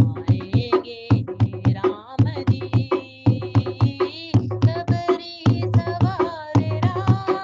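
Indian devotional song: a steady tabla and drum beat with a melody line and singing over it.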